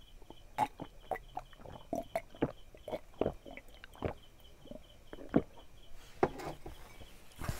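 A person drinking from a mug in gulps: a run of short, irregular gulping and swallowing sounds.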